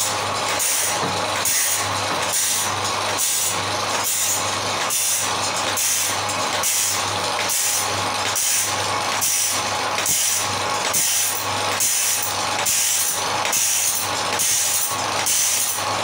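Automatic band saw blade sharpening machine grinding a sawmill band saw blade, its abrasive wheel dropping into one tooth after another in a steady rhythm of a little more than one stroke a second, over the steady hum of its electric motor.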